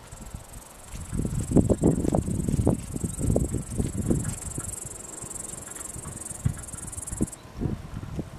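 A steady, high-pitched insect trill that cuts off suddenly about seven seconds in. Under it, from about a second in, there is a stretch of irregular low rumbling noise.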